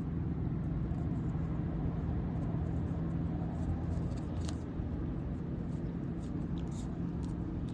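Steady low background hum with a few faint, soft clicks and rustles as baseball cards are handled and slid off the stack.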